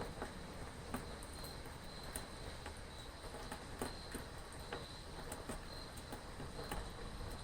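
Crickets chirping in a steady, pulsing trill over a soft, even wash of rain, with scattered sharp drips.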